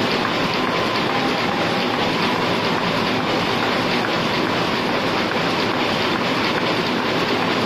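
Heidelberg SORMZ two-colour sheet-fed offset printing press running: a steady, dense mechanical clatter with faint regular ticking.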